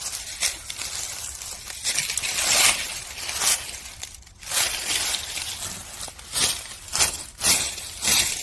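Dry leaf litter rustling and crunching in irregular bursts on the forest floor.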